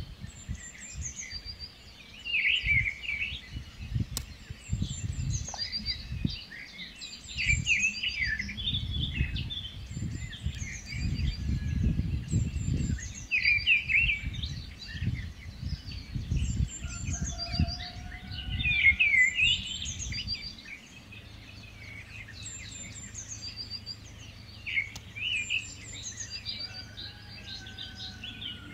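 Several small birds chirping and singing in repeated short phrases, with a low rumbling underneath for about the first twenty seconds that then settles into a faint steady hum.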